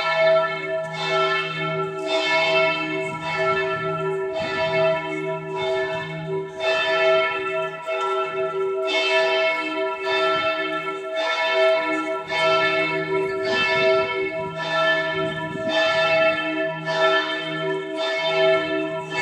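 Church bells of St. Stephen's Cathedral in Vienna ringing together: several bells struck about once a second, each stroke ringing on under the next.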